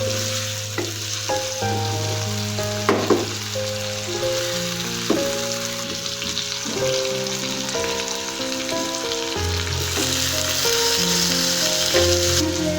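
Food sizzling as it fries in hot oil in a pan, with a few knocks from stirring, over background music of long held notes.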